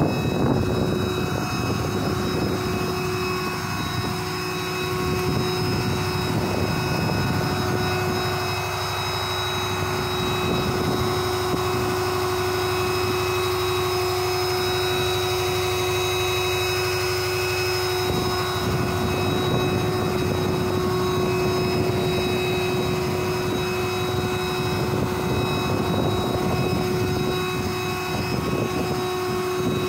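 Ford F-650 rollback truck running steadily, a constant engine drone with a steady whine held over it.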